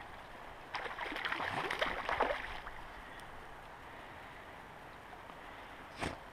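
River water flowing steadily over a shallow, rocky bed. About a second in, a louder rough, crackling burst lasts about two seconds, and a short sharp knock comes near the end.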